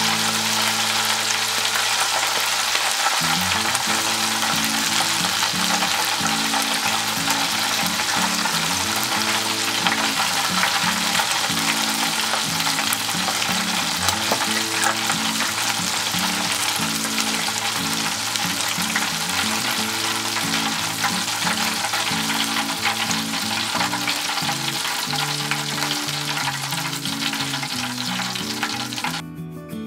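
Battered webfoot octopus deep-frying in hot oil in an electric deep fryer: a dense, steady crackling sizzle, stirred with chopsticks. It cuts off just before the end. Background music with a bass line runs underneath.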